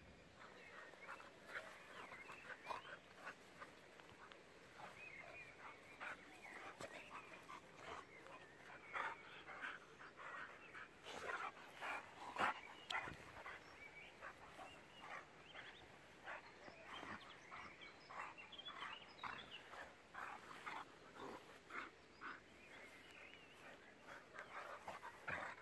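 A boxer and a pit bull play-wrestling, making many short, irregular dog noises throughout. The noises are faint overall, with a few louder ones around the middle.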